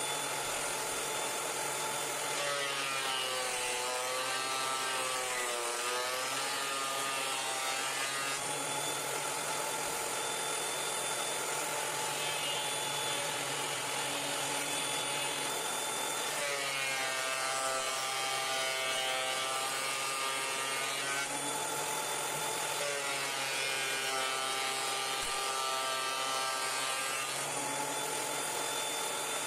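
Benchtop thickness planer running with a steady high whine. Three times a board passes through the cutterhead, and each time the pitch sags and wavers for a few seconds under the cut.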